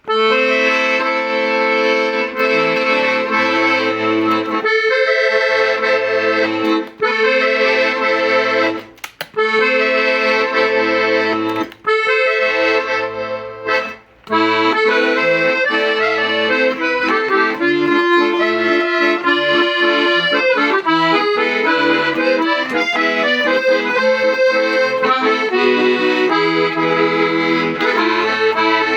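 G. Argentati accordion being played: held chords over bass notes, broken by short pauses, then from about halfway a quicker run of melody notes over the bass.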